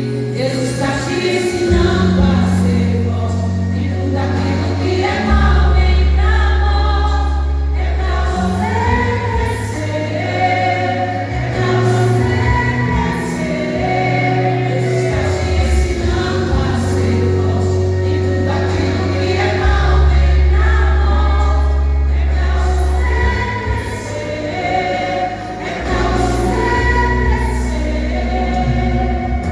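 A group of worship singers singing a gospel song together over sustained bass accompaniment.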